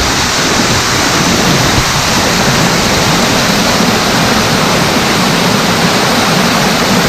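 Waterfall pouring into a stream pool, a loud, steady rush of falling water.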